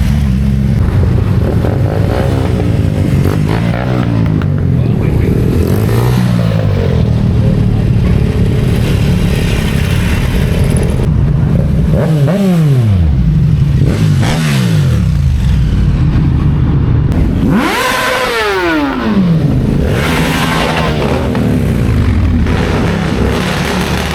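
Motorcycle engines running in slow traffic, with several bikes passing close by, their engine note falling in pitch as each goes past, about twelve, fourteen and eighteen seconds in.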